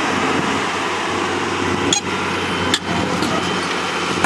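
Caterpillar 320C hydraulic excavator's diesel engine running steadily, with two sharp clicks about two and three seconds in.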